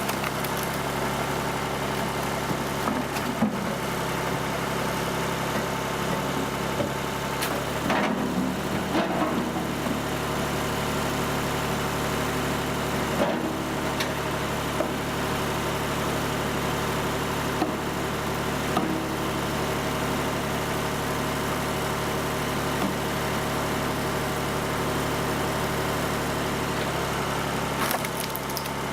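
Horizontal log splitter's power unit running at a steady drone, with a few sharp knocks now and then.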